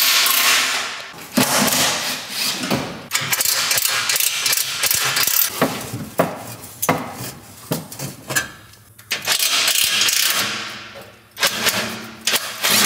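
A ratchet tool undoing the exhaust fasteners under a car: several bursts of whirring, ratcheting tool noise, with sharp metallic clicks between them.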